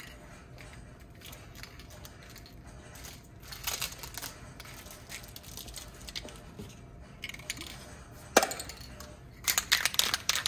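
Tape being peeled and torn off the cap of a spray paint can, crackling and rasping in short bursts, with a sharp click a little past eight seconds in and a burst of rasping near the end.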